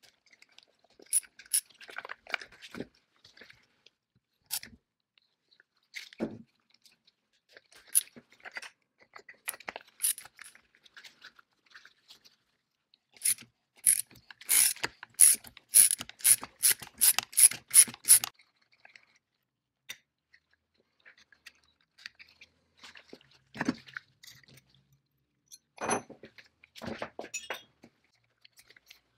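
Metal parts and hand tools being worked during the disassembly of an old pneumatic circular saw: scattered clicks and a few dull clunks, with a run of about a dozen sharp clicks, roughly three a second, in the middle.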